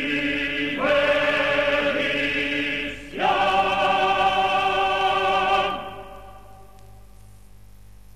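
A choir singing long held notes in two phrases, with a short break about three seconds in; the singing stops near six seconds in and a faint tail remains.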